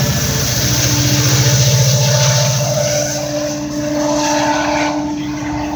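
GO Transit diesel locomotive running as it passes close by on departure. Its low engine drone is loudest at first and fades over the first three seconds, while a steady tone starts about a second in and holds.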